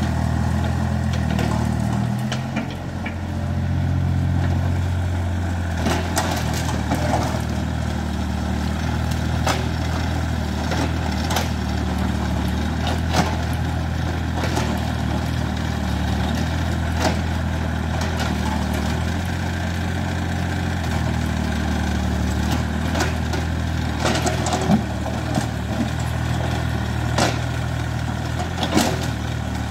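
Heavy land-clearing machine's diesel engine running steadily, its note dipping briefly about two seconds in, with scattered sharp cracks and knocks from about six seconds on.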